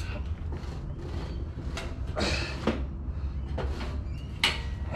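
A few knocks and scrapes of generator frame parts being handled and fitted, over a steady low rumble. The loudest knock comes near the end.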